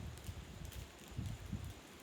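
Soft low thumps, a few a second and unevenly spaced, with faint rustling: a hand patting a baby's back to bring up a burp.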